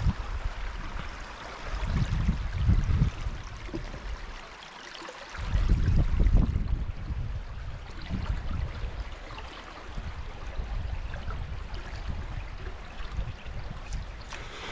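Shallow creek water running and trickling over a rocky bed in a steady hiss. Bursts of low rumble on the microphone come about two seconds in and again around six seconds.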